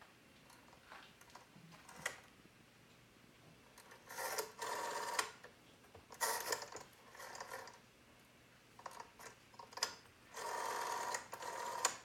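Rotary telephone dial being turned and whirring as it spins, three times, each run lasting about a second to a second and a half, with a few light clicks in between.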